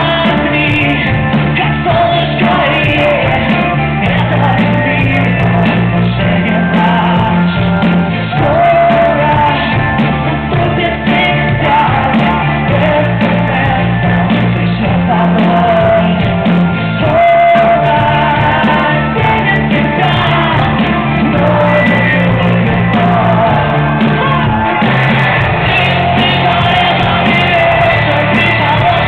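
Live rock band with electric guitars, bass, drums and keyboards playing loud under a lead vocalist singing and shouting. The sound is dull and lacks treble, with heavy bass, as picked up by a small camera microphone in the crowd.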